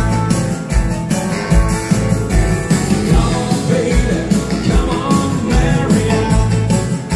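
Live dansband playing an upbeat rock 'n' roll number through a PA, with a steady kick-drum beat and saxophone and electric guitars in the line-up.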